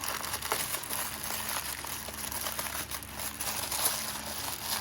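Plastic bag crinkling with many small crackles as it is pulled and worked off the unit it wraps.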